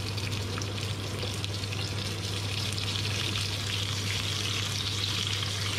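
Lamb rib pieces sizzling in hot oil in a frying pan: a steady hiss with fine crackles, growing a little stronger partway through.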